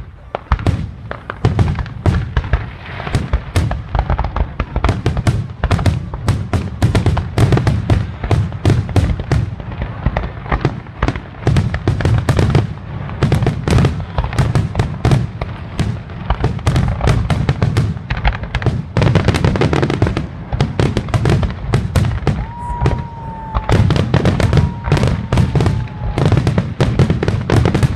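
Fireworks display going off in a rapid, continuous barrage of bangs and crackles over a steady low rumble. About three-quarters of the way in, a whistle near one pitch falls slightly and lasts a few seconds.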